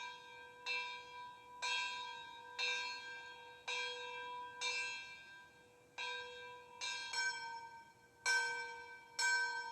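Locomotive bell sounds from a TCS WOWSound DCC sound decoder, played through the small speaker in an HO-scale model locomotive's tender: single bell strikes about once a second, each ringing and dying away, stepping through different bells to play a slow little tune.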